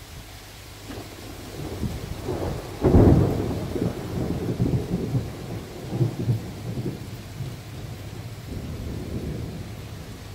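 Heavy rain falling steadily, with a roll of thunder that breaks about three seconds in and rumbles unevenly for several seconds before fading back under the rain.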